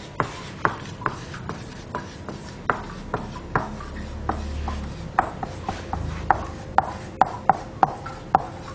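Marker pen writing on a whiteboard: short taps and scrapes of the felt tip against the board as each letter is written, about two or three a second, louder and closer together in the second half.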